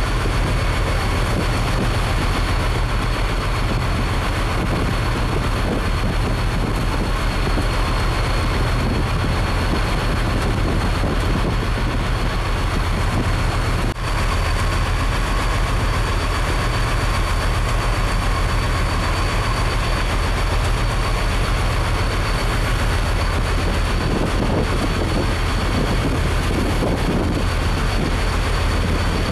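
A boat's engine droning steadily under way, over a constant rush of wind and water, with a thin steady high whine on top.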